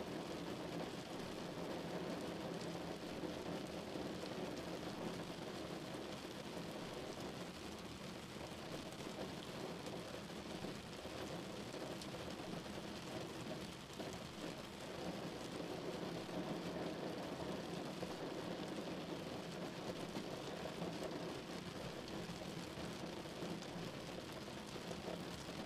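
Steady noise of a car driving in rain on a wet road, heard from inside the cabin: tyres on the wet road and rain on the car.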